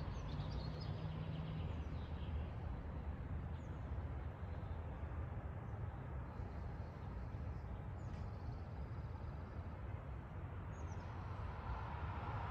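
Outdoor street ambience: a low steady rumble with a few short bird chirps scattered through it, and the rising hiss of an approaching car building near the end.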